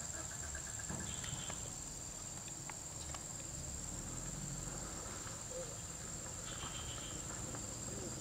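Steady high-pitched insect drone, with a few short repeated chirps near the start and again near the end, over a low rumble.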